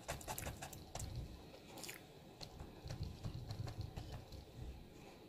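Stippling brush dabbing thick paint onto a canvas: a run of soft, sticky taps and clicks, most of them in the first second, with softer dabs later on.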